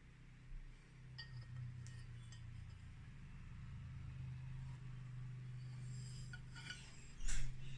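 Glass and kitchenware clinking lightly a few times over a low steady hum, with a busier run of clinks and one louder knock near the end.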